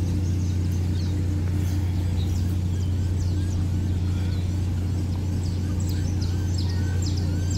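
A steady low hum, like a motor or pump running, with birds chirping over it.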